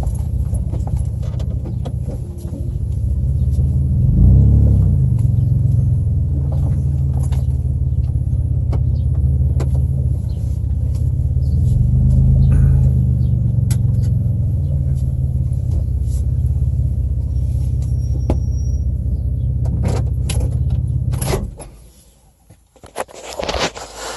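Car driving: a steady low engine and road rumble that swells twice. About three-quarters of the way through it cuts off abruptly, as when the engine is switched off, followed by a few knocks and clicks.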